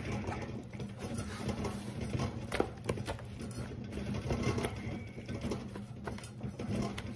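Paper towel dabbing and rubbing on raw chicken skin, soft patting and rustling at irregular moments, over a steady low hum.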